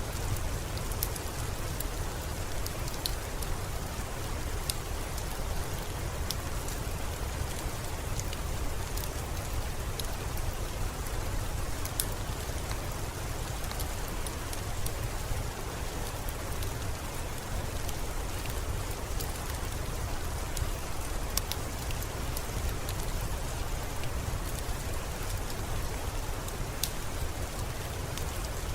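Steady rain falling, an even hiss with a low rumble beneath it and scattered sharp ticks of single drops.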